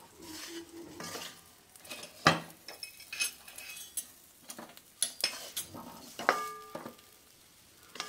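Wooden spatula scraping and knocking against a metal kadai while boiled baby potatoes are stirred into dry roasted besan-and-spice masala, with a sharp knock about two seconds in.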